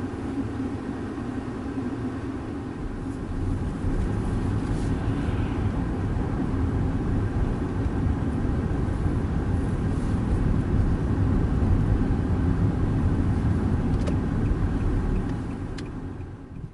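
Steady low rumble of motor vehicles, getting louder about four seconds in and fading out at the end.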